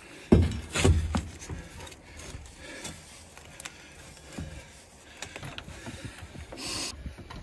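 Two heavy thumps about half a second and a second in, then lighter knocks and scrapes: a steel pry bar levering at a tractor's wedged front wheel on a wooden trailer deck.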